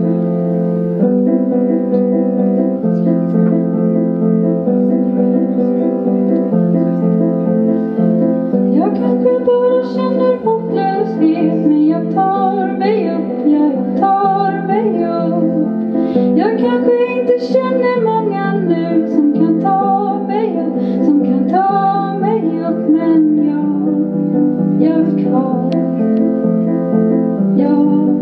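Live song: a keyboard plays held chords that change about once a second, and a woman's voice begins singing about nine seconds in, over the chords.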